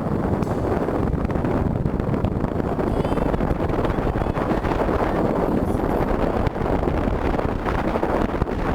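Wind buffeting the microphone: a steady, rumbling rush of noise.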